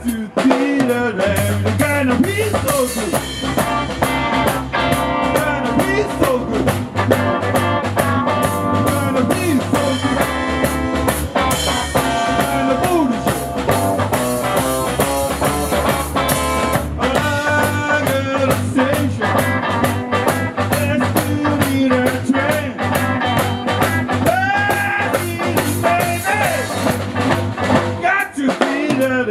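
Rock band music with guitar, drum kit and singing, playing continuously over the pictures.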